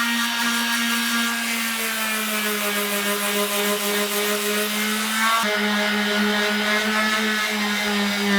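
Handheld electric power tool running steadily, a motor whine that dips slightly in pitch at times as it is loaded against the work, with a high hiss over it that eases about five and a half seconds in.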